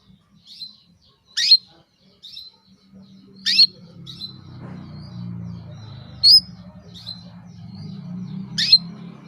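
Female domestic canary calling: four loud, sharp chirps a couple of seconds apart, with softer short tweets between them. These are the calls of a hen in breeding condition that draw male canaries into song. A steady low hum sits underneath from about three seconds in.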